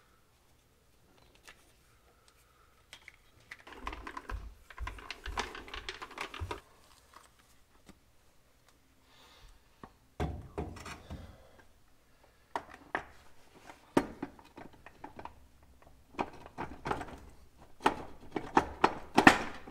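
Metal knocks, clunks and clicks as an NV149 transfer case is lifted and fitted to the back of a transmission. There is a busy run of knocking with dull thumps a few seconds in, a heavier clunk about ten seconds in, and quick clicking taps near the end.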